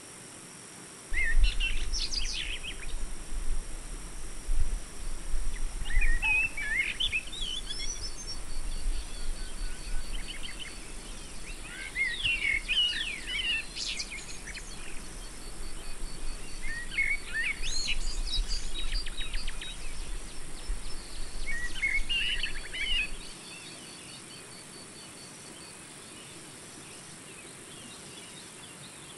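Nature ambience: birds chirping in short clusters every few seconds over a steady insect drone, with a low rumble underneath. The birdsong and rumble start suddenly about a second in and cut off suddenly with about six seconds left, leaving only the insect drone.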